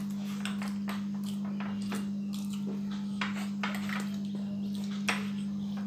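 Metal spoons clinking and scraping now and then against glass bowls as cake is eaten, over a steady low hum.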